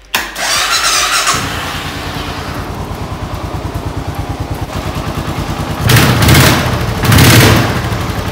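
Suzuki cruiser motorcycle engine started on the electric starter: about a second of cranking with a whine, then the engine catches and idles with an even pulse. The throttle is blipped twice near the end, the loudest moments.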